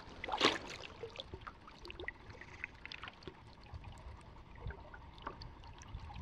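Canoe paddle stroke in calm water: a soft splash as the blade dips about half a second in, followed by faint drips and trickles of water off the paddle and hull.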